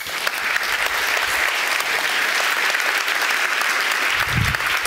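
Large audience applauding: a dense, steady clatter of many hands clapping.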